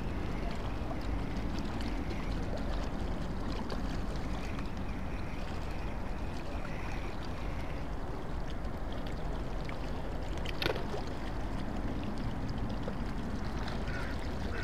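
Steady low rumble of harbour ambience, wind and water on the microphone, with a single sharp click about ten and a half seconds in.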